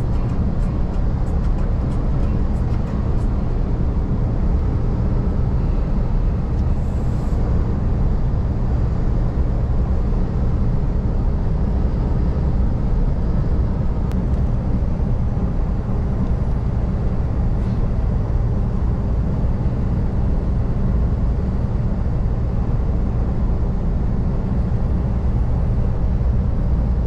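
Iveco truck cab at highway cruising speed: a steady low rumble of the diesel engine and road noise, heard from inside the cab.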